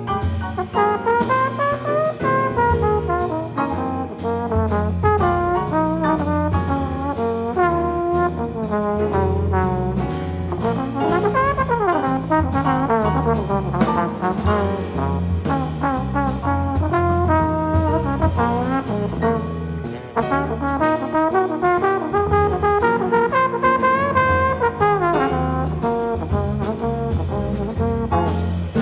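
Jazz trombone solo over a live rhythm section of piano, electric bass guitar and drum kit. The trombone line includes several sliding runs down and up in pitch.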